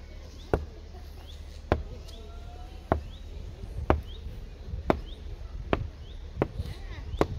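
A series of sharp, single knocks at a steady pace of about one a second, with faint short high chirps between them.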